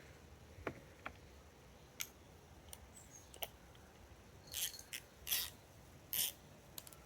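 Metal sockets and extensions handled in a plastic socket-set case: a few faint light clicks, then three short scraping rasps in the second half.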